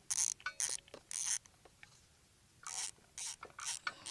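Ratchet wrench clicking in a series of short back-strokes, with a pause of about a second midway, as a spark plug is worked loose.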